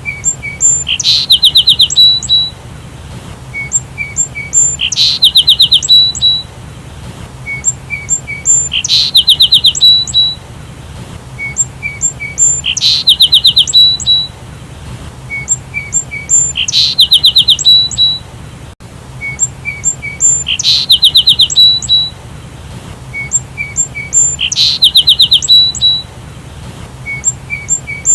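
Sparrow chirping in a phrase repeated about every four seconds, the same each time as though looped: a few short, high, separate chirps, then a rapid run of chirps.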